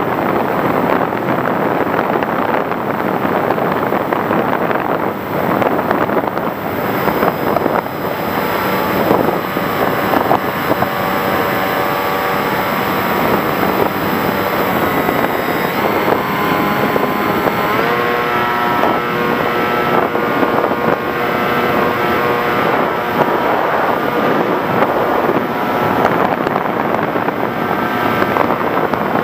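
Electric motor and propeller of an FPV Raptor RC plane whining in flight, over a steady rush of wind on the onboard microphone. The motor's pitch shifts with the throttle around the middle.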